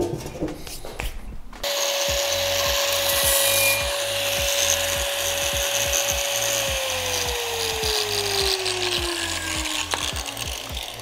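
Angle grinder with a sanding disc grinding the lip off the back of a cast-iron brake rotor's hub bore so the rotor will seat on the hub. It starts about two seconds in and runs with a steady whine and a grinding hiss, then the whine falls in pitch over the last few seconds as the grinder spins down.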